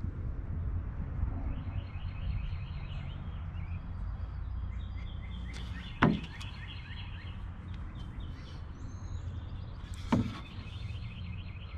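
Two sharp knocks about four seconds apart, as wooden drawer parts are handled during a glue-up. Behind them, birds chirp in repeated quick trills over a steady low rumble.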